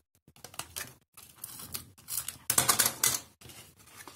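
Adhesive tape runner clicking and rattling as it is drawn along cardstock tabs, with paper rustling as the box is pressed and folded. A louder, denser stretch of clicks and rustles comes about two and a half seconds in.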